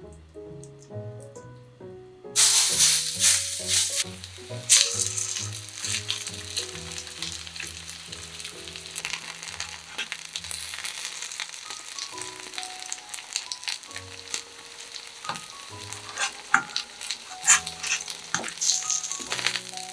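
Minced chicken-breast patties sizzling in hot oil in a frying pan. The sizzle starts suddenly about two seconds in as the patties go into the pan, with sharp clicks from a slotted metal turner near the end.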